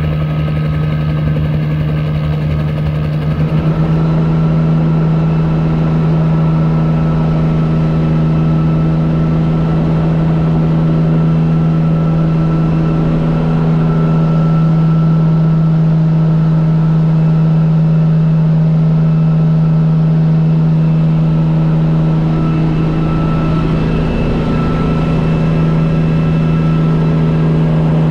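Bell 47 helicopter's piston engine and rotor running steadily with a strong, even hum. From about four seconds in, it is heard from inside the cockpit.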